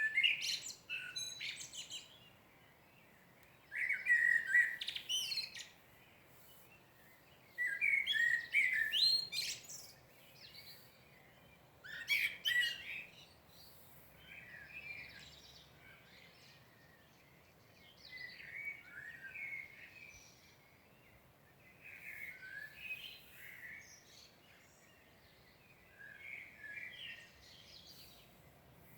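A songbird singing in separate phrases of about two seconds, one every four seconds or so. The first four phrases are louder and the later ones fainter.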